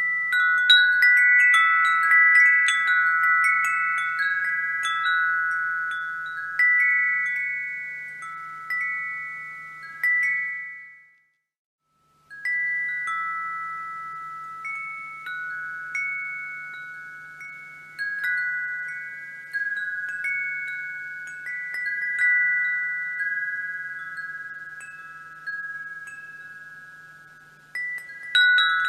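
Wind chimes ringing, several notes struck at irregular moments and overlapping as each rings away. About ten seconds in the chiming fades out and stops dead for about a second, then starts again.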